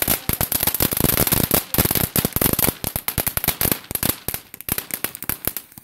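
Fireworks going off in a rapid, irregular run of sharp pops and crackles, many a second. The pops are densest in the first half and thin out a little later.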